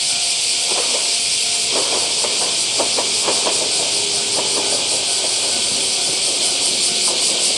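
103 series electric train running past a level crossing, its wheels giving a run of clicks and squeaks, under a steady high hiss.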